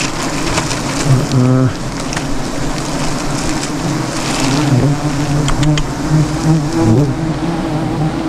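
A swarm of disturbed honeybees buzzing steadily around a freshly cut-open nest. Single bees swoop close by, their pitch bending, about a second in and again near the end.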